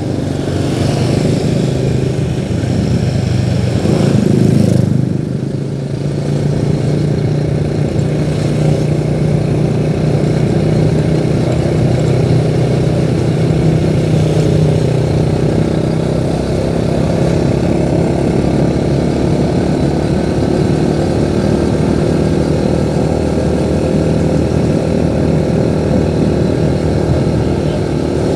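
Vehicle engine running steadily on the move, with road noise. A louder swell with a sliding pitch comes about four seconds in.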